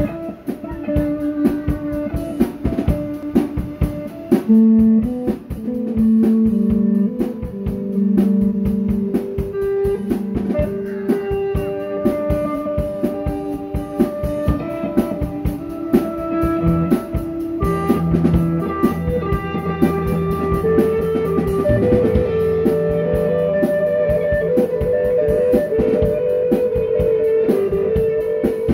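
Live instrumental blues-rock jam: an electric guitar played through effects pedals, with held notes, over a drum kit keeping a steady beat. Lower sustained notes come in a little past halfway.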